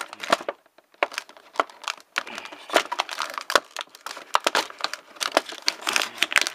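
Thin clear plastic blister packaging crinkling and crackling in irregular snaps as a launcher is pried out of its moulded tray, with brief lulls about half a second in and about two seconds in.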